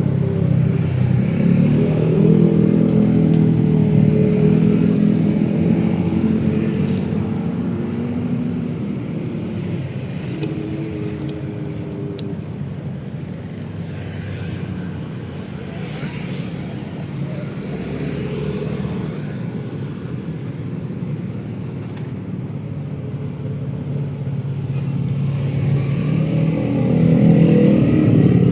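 Busy city road traffic: motor vehicle engines passing close by, louder in the first few seconds and again near the end, with a quieter lull in between.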